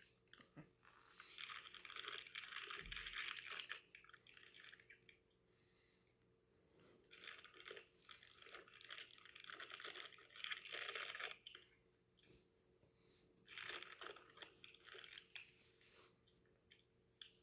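A person chewing a mouthful of Cheetos cheddar flavored popcorn, crunching in three long bouts with short pauses between them.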